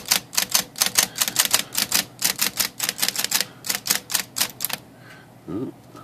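Mid-1960s Smith Corona electric typewriter's typebars striking in quick succession, about five a second, as the keys are run through one by one under power to test them. The strikes stop about five seconds in, at a typebar that the repairer thinks is binding on its linkage.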